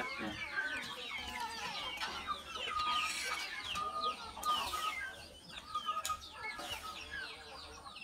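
A flock of chickens, hens and young chicks, calling while feeding. Many quick high falling peeps from the chicks run over lower clucking from the hens.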